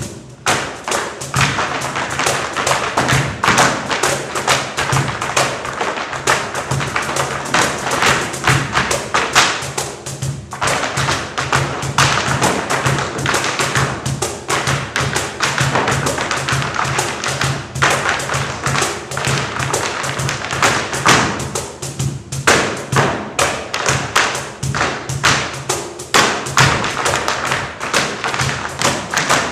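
Tap shoes striking a stage floor in fast, dense rhythmic patterns, a continuous stream of sharp taps and heavier stamps that lets up briefly a few times. A low pulsing tone runs beneath.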